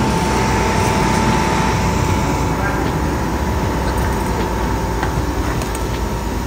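Steady vehicle engine noise, with a thin whine over it that fades out about halfway through.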